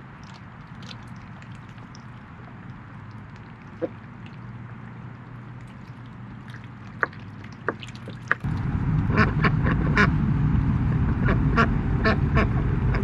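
Ducks feeding at a water tub, with a few scattered clicks and short quacks. About eight seconds in the sound suddenly gets louder: a steady low rumble with a quick run of short quacks over it.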